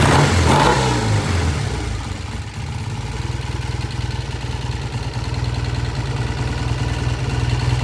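Vintage British motorcycle engine idling, given a brief blip of throttle at the start that rises and falls back, then settling into a steady idle.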